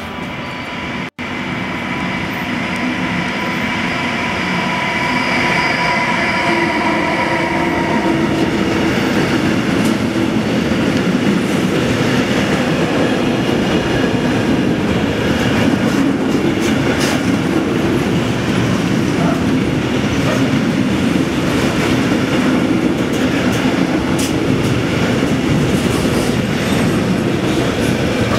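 Freight train of tank containers and swap-body wagons passing close at speed. The wheels make a steady rolling noise on the rails with repeated clicks over the rail joints, growing louder over the first few seconds. A high whine with a few steady tones is heard at first and fades out about eight seconds in.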